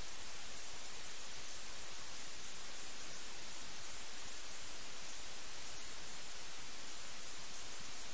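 Steady static hiss, even and unchanging, strongest in the high treble, with no other sound over it.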